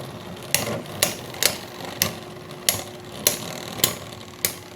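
Beyblade X spinning tops whirring in a plastic stadium, with sharp clacks about every half second as they strike each other or the stadium wall during a battle.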